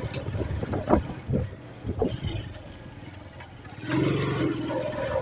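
Kawasaki Boxer motorcycle riding over a rough, potholed dirt road: engine running, with several knocks and rattles from the bumps in the first two seconds. A thin high whine is heard in the middle.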